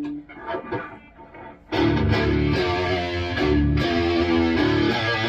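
Electric guitar played through a Bogner Uberschall high-gain preamp: a few quiet picked notes, then about two seconds in a loud, heavily distorted riff of chords that changes every half second or so.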